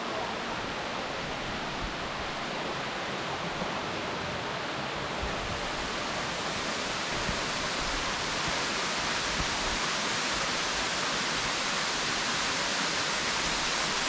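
Waterfall plunging down a rock face into a pool: a steady rush of falling water that grows a little louder about halfway through.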